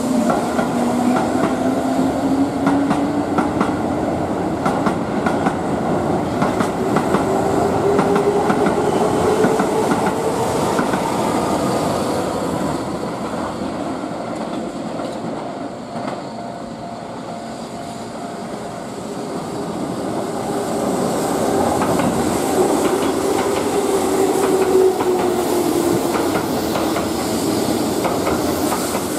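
Keihan limited express electric train pulling out of the station. Its traction motors whine, rising in pitch as it accelerates, and its wheels clatter over the rail joints. The sound dips about halfway through and swells again near the end.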